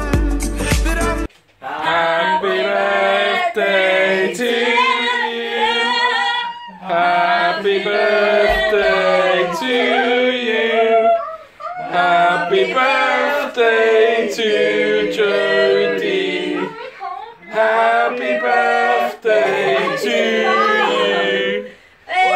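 A small group of people singing together without accompaniment, in several phrases with short breaks. A burst of background music cuts off about a second in.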